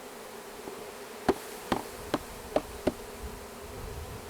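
Swarm of honeybees buzzing in a steady hum around an open hive, with five sharp knocks in quick succession starting about a second in.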